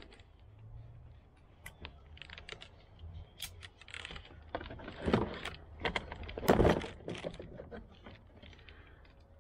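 Plastic air-cushion packaging crinkling and rustling as it is handled in a cardboard box, with scattered clicks and taps. The loudest rustles come about five seconds in and again about a second and a half later.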